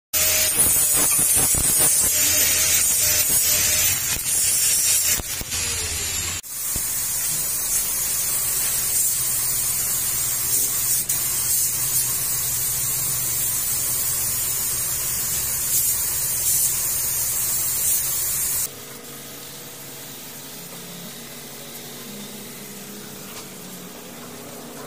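Compressed-air paint spray gun hissing steadily while spraying, loud and even, with an abrupt break about six seconds in. About three-quarters of the way through the hiss cuts off and gives way to a much quieter steady hum.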